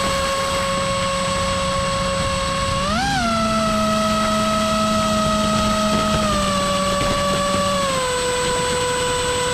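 Brushless motor spinning a 6-inch three-bladed ducted propeller: a steady high whine over a rushing noise, with a brief rise in pitch about three seconds in as the throttle is blipped, then stepping down twice in the second half.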